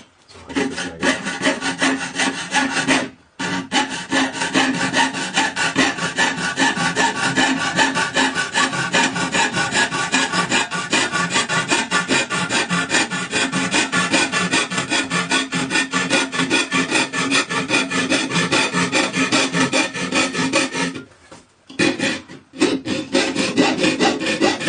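Hand coping saw with a wire blade cutting with quick, even back-and-forth strokes, several a second. There are two short pauses, about 3 seconds in and about 21 seconds in.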